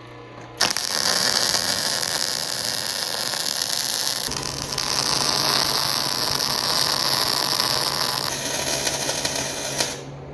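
Electric arc welding: the arc strikes about half a second in and runs as one steady crackling hiss while a bead is laid in a crack in a preheated 2-inch hex auger shaft, then stops near the end.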